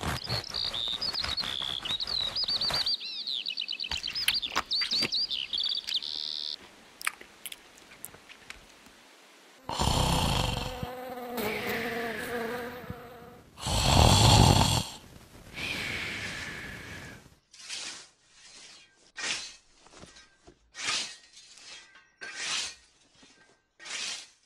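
Outdoor countryside ambience: a warbling birdsong for the first several seconds, two louder bursts in the middle, then short chirps repeating about once a second.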